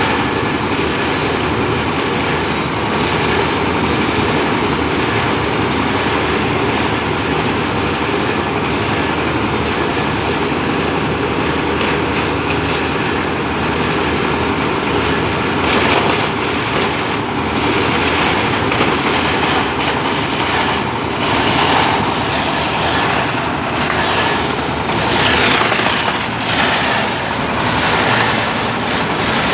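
Plastic packaging shredder running, a loud steady machine noise. From about halfway through it has irregular, louder rasping surges.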